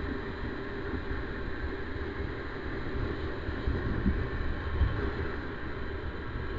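Wind buffeting the microphone of a moving 50cc bike, with the small engine's steady drone underneath.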